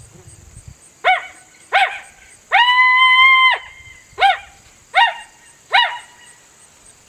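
Coyote barks blown on an MFK latex diaphragm call: two short barks, a steady howl note about a second long, then three more short barks. This is the plain bark typical of beginners on the call, without the raspy tone of a loosely held call.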